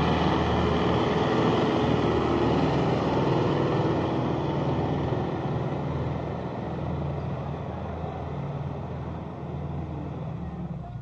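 Engine of an HR-702 rubber-track crawler tractor running steadily under load as it pulls a plough through heavy soil. It grows gradually fainter as the tractor moves away.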